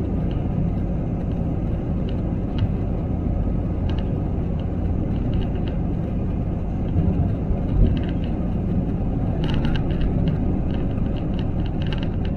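Airbus A321 takeoff roll heard inside the cabin: a steady rumble of engines at takeoff power and wheels on the runway, with light clicks and rattles scattered through it.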